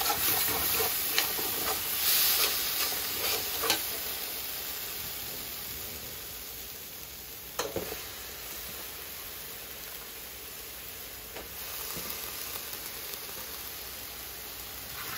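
Curry paste of onion, tomato, curry powder and masala frying in an aluminium pot: a steady sizzle, with a spoon scraping and stirring against the pot bottom in the first few seconds. After that the sizzle goes on more quietly, with one sharp knock about halfway through.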